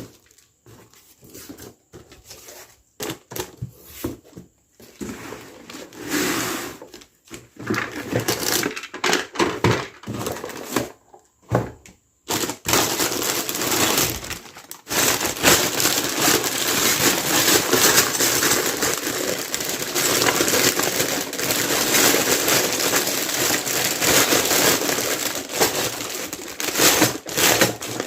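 Packaging crinkling and rustling as a toy set is unboxed by hand: scattered crackles and clicks at first, then continuous dense crinkling from about halfway through.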